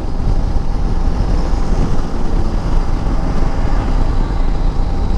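Wind buffeting the microphone of a Bajaj Dominar 400 rider at highway cruising speed, a loud steady rush heavy in the low end, with the motorcycle's single-cylinder engine running underneath.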